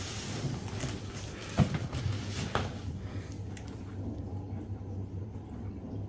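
A large cardboard box being handled and set on a scale: several knocks and scrapes, the loudest a thump about a second and a half in, then a steady low hum.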